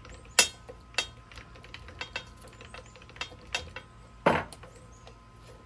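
Irregular metal clicks and clanks as a grinder wheel and its mounting hardware are handled against the steel frame of a blade sharpener, with two louder knocks, about half a second in and about four seconds in.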